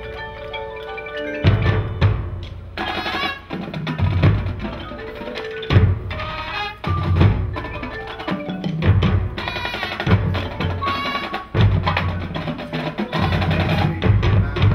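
High school marching band playing its field show: sustained wind chords over drum hits and mallet percussion from the front ensemble.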